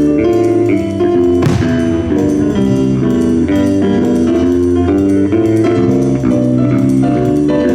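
Live jazz band playing a steady run of short melodic notes over a bass line and drums. One sharp crash with a short ringing tail about a second and a half in.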